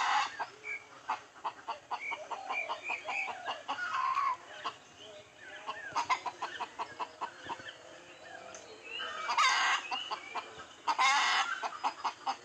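Chickens clucking in quick runs of short notes, then a rooster crowing twice in the second half.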